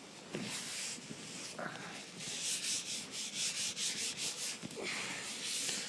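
Cloth rubbing briskly back and forth as something is dried off, in quick repeated strokes of about three to four a second from about two seconds in.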